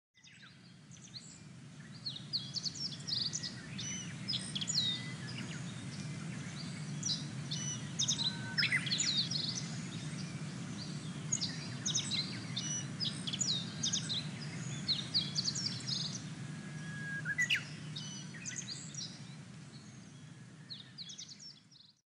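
Male blue-and-white flycatcher singing: phrase after phrase of clear whistled notes and quick slurred trills, over a steady low background hum. It fades in at the start and out near the end.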